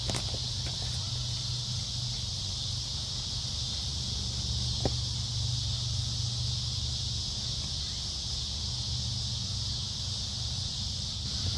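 Steady chorus of insects, an even high trill, over a constant low rumble, with a single short click about five seconds in.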